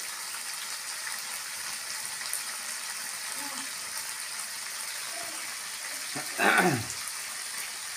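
Beef skin in chili balado sauce sizzling and simmering steadily in a wok on a gas stove. About six and a half seconds in, a brief voice sound falls in pitch.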